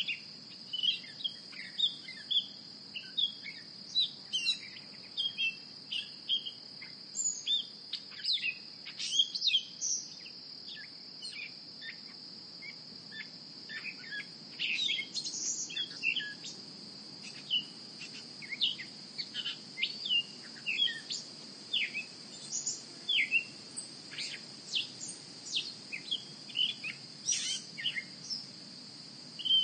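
Many birds chirping and calling in short, quick notes over a steady high insect drone, like a backyard nature ambience.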